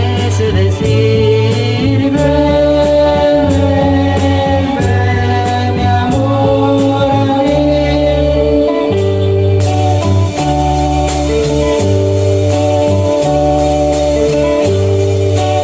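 Instrumental passage of a Latin band song: a repeating bass line, a steady beat of light percussion ticks and held melody notes. About ten seconds in, a cymbal wash brightens the top end.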